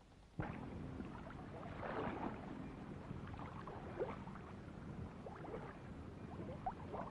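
A motorcycle engine running at low speed, starting suddenly about half a second in as a steady hum with short high chirps scattered over it.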